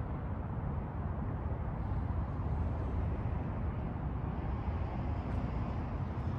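Steady low outdoor rumble with no distinct events in it.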